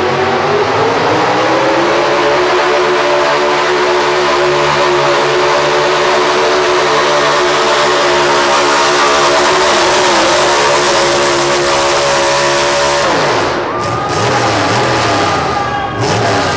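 Pickup truck pulling engine running hard at high revs under load as it drags the pulling sled, the pitch climbing over the first couple of seconds and then holding steady. About thirteen seconds in the revs fall away sharply as the pull ends, leaving a high whine, with a brief rev near the end.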